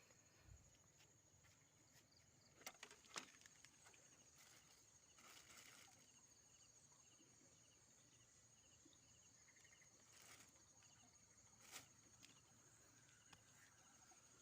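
Faint chorus of night insects: a steady high chirring with repeated short chirps, broken by a few soft clicks.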